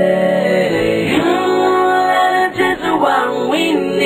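Music with a sung vocal melody over instrumental backing, long held notes gliding between pitches.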